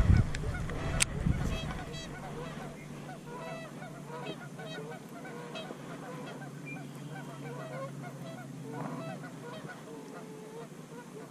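A flock of birds calling, many short honks overlapping one after another, like geese, over a low steady hum.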